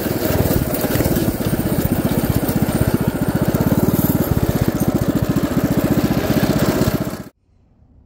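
DuroMax XP7HPE 212cc single-cylinder engine, with its governor bypassed, running under load on a mini bike being ridden, its rapid, even exhaust pulses mixed with wind noise. The sound cuts off abruptly about seven seconds in.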